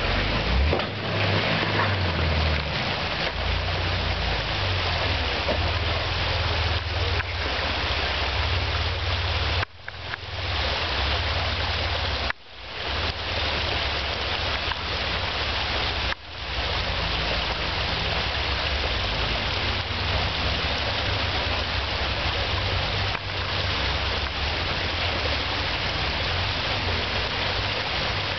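Off-road Jeeps' engines crawling over rocks, low and mostly buried under a loud, steady rushing noise. The sound breaks off abruptly three times, about ten, twelve and sixteen seconds in, at cuts in the recording.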